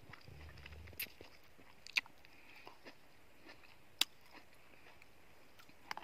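A person eating cherries off a spoon: faint chewing, with a few sharp clicks about one, two and four seconds in and a brief low rumble near the start.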